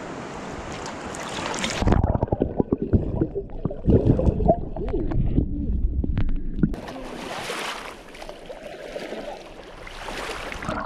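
River water picked up by a camera microphone dipped in and out of the water: open hiss and splashing at the surface, cutting suddenly to muffled gurgling and low knocks once it goes under about two seconds in, then opening up again at the surface near seven seconds.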